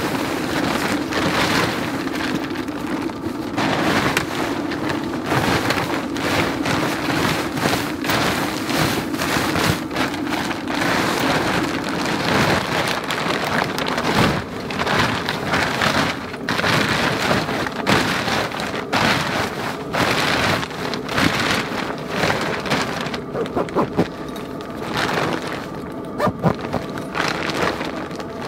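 Tent fabric of an awning room being gathered, folded and stuffed into its bag: continuous loud rustling and crinkling of the material, with a steady low hum through the first half.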